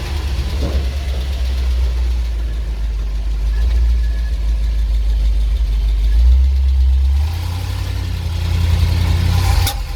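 ZIL truck engine running steadily with a deep low note that shifts up a step about seven seconds in. A short sharp click comes near the end.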